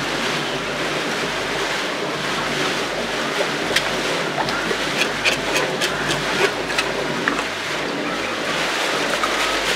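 A stream of running water splashing onto a gutted fish and a concrete floor, a steady rushing, with a run of sharp clicks and taps in the middle as the fish is handled and rinsed.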